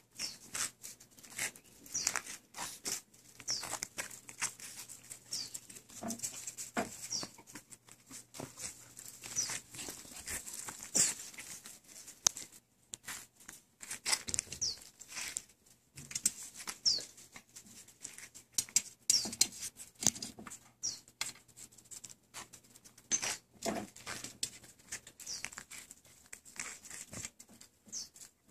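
Miniature poodle puppies scampering on patio pavers: many short clicks and taps from paws and claws, with frequent brief high chirps that fall in pitch.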